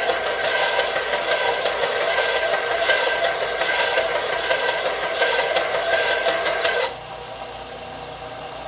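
Harbor Freight 4x36 bench belt sander grinding a chamfer onto the end of a 5/8 in steel bar, a steady, loud grinding hiss with a few steady tones. About seven seconds in it drops suddenly to a quieter steady hum as the bar comes off the belt and the sander runs on.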